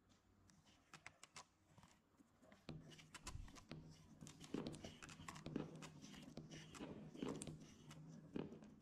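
Small marbles rolling down a modeling-clay track: a soft rolling rumble with many light clicks as the marbles knock against one another and the cardboard. The rumble starts a little under three seconds in.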